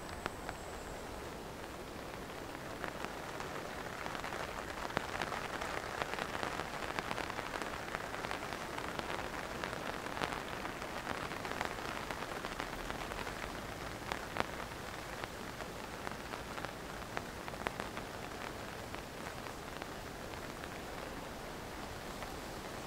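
Steady rain falling on a canvas lavvu tent: an even hiss of rain with many single drops ticking on the cloth, growing a little heavier for a while in the middle.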